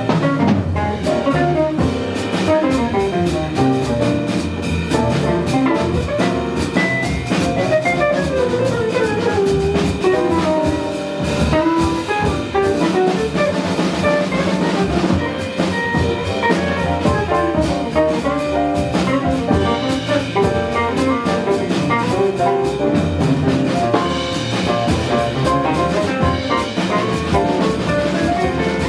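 Live jazz band playing: a saxophone runs melodic lines over piano, guitar, bass and drum kit.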